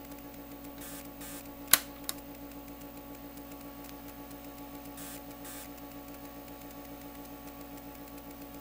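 Steady electrical hum of several tones from bench test equipment, with one sharp click a little under two seconds in and a fainter one just after. The clicks are a push-button switch on a B&K 1805 frequency counter being pressed to put it into period mode.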